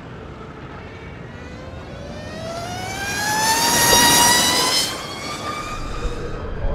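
Electric race motorcycle's motor whining as it accelerates past, the whine climbing steadily in pitch and swelling to its loudest about four seconds in with a rush of wind and tyre noise, then dropping away quickly.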